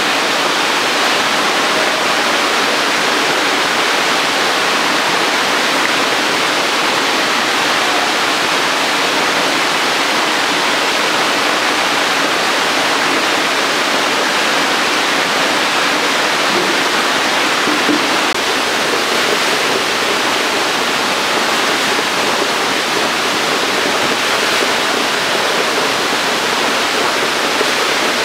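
Steady splashing, rushing water from a shallow tank crowded with hybrid magur catfish fry churning at the surface.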